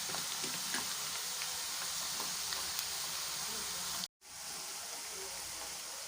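Sliced onions deep-frying in hot oil, a steady sizzle dotted with small crackles. The sound drops out for an instant about four seconds in, then the sizzling carries on.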